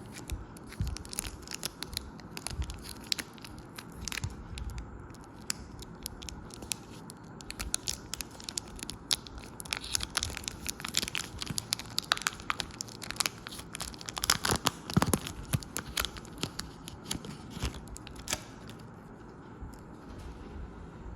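Chocolate wrappers being torn open and crinkled: a dense run of sharp crackles and rips, loudest a little past the middle, dying away about three seconds before the end.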